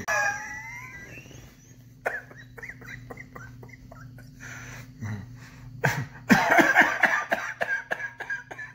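A man coughing in a fit. A strained, drawn-out cough comes first, then a run of short hacking coughs, then a harder, louder bout about six seconds in.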